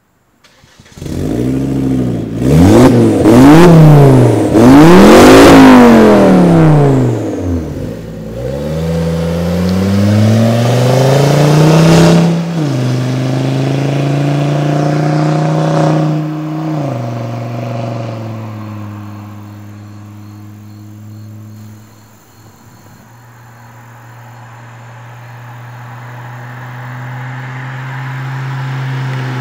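Volvo S40 T5's turbocharged five-cylinder engine, warmed up, through a catless 3-inch downpipe, Magnaflow resonator and deleted muffler. It revs up and back down several times in quick succession, then pulls away with the pitch climbing and dropping at two gear changes. It then holds a steady note that fades and grows louder again near the end as the car comes back toward the listener.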